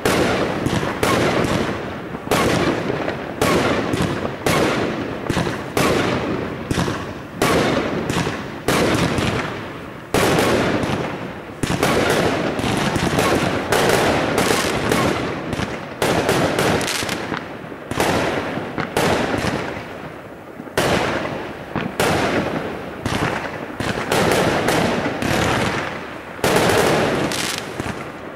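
Aerial fireworks bursting in a rapid, near-continuous barrage of sharp bangs, several a second, with brief lulls every few seconds.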